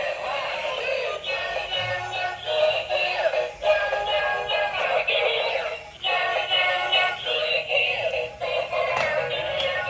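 Music with a synthesized singing voice, thin and high-pitched with almost no bass.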